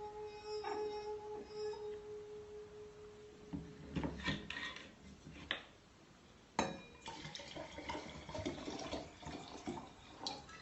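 A drinking glass with liquid in it rings with one steady, sustained note for about three and a half seconds, then stops. Glass clinks and knocks follow, with sharp taps about four and six and a half seconds in, then rough sounds of water and glassware being handled.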